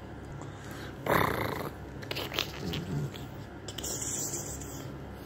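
French bulldog making low rumbling grunts as its belly is rubbed, with one loud breathy snort about a second in.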